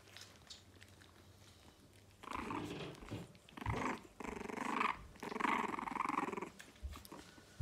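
French bulldog puppies play-growling while wrestling, in four rough bouts that start about two seconds in.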